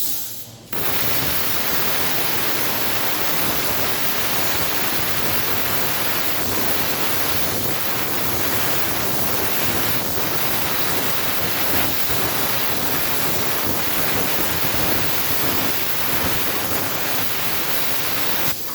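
Plasma torch on a CNC cutting table cutting steel: a loud, steady rushing hiss that starts suddenly just under a second in, after a brief lull, and cuts off near the end.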